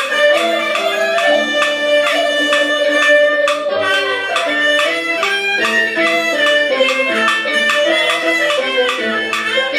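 Chinese two-string fiddle playing a Peking opera aria melody, with a wooden clapper clicking the beat at regular intervals.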